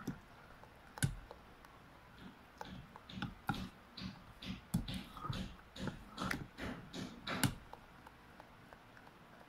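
Metal ladle stirring thick rice-flour and coconut-milk batter in a stainless steel bowl: irregular clinks of the ladle on the bowl mixed with soft wet slaps of batter, stopping a little before the end.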